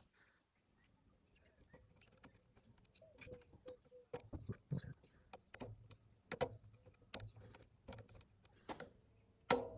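Irregular metal clicks and clinks of a steel sprocket gear being jiggled onto a roller chain in a tractor's steering assembly.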